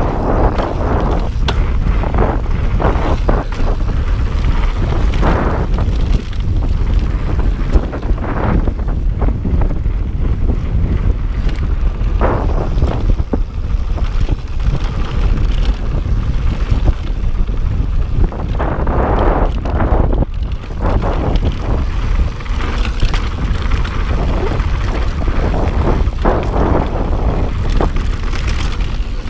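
Heavy wind buffeting the microphone of a camera on a moving mountain bike, a constant low rumble, with uneven bursts of tyre and trail noise coming through as the bike rolls over the dirt singletrack.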